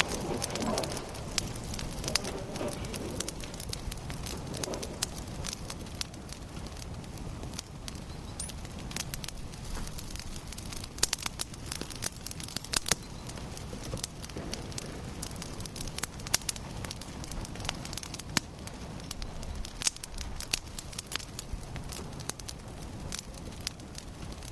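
Water lapping and rippling at the surface: a steady hiss with many irregular small splashes and crackles.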